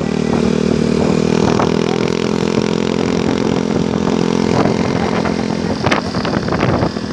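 Bus engine running with a steady drone that fades out about five seconds in, leaving general road traffic noise with a few clicks.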